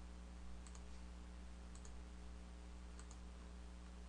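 Computer mouse clicking three times, about a second apart, each click a quick press-and-release pair. The clicks are faint, over a steady low electrical hum.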